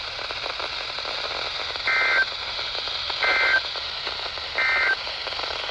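NOAA Weather Radio EAS (SAME) end-of-message data tones: three short, identical warbling bursts of digital tones, each about a third of a second and a little over a second apart. They sound over steady radio static hiss and mark the close of the special marine warning broadcast.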